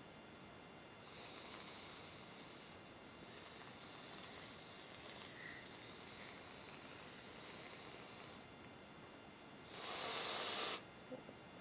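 Aerosol can spraying in a long, high hiss that starts about a second in, dips briefly, and stops about eight seconds in. Near the end comes a louder, fuller hiss of about a second.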